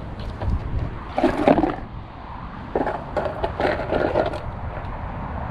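Skateboard knocking and scraping on a concrete path during trick attempts, in two rough bursts, over a steady rumble of wind on the microphone.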